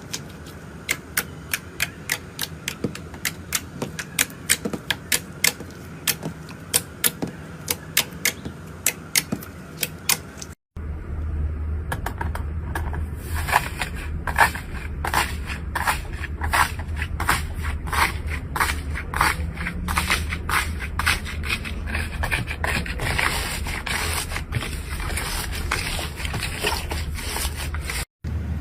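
Slime being squeezed and worked by hand, making sharp, repeated clicking pops about two to three times a second. After a cut, a second slime clip brings faster, crackly pops over a low hum.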